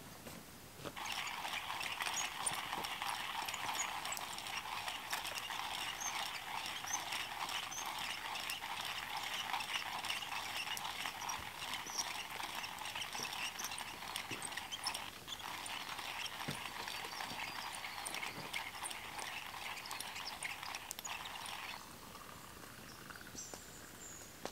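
Billy can boiling hard on the campfire: a dense, fast crackling and rattling of bubbling water and a jiggling lid that starts about a second in and stops suddenly near the end.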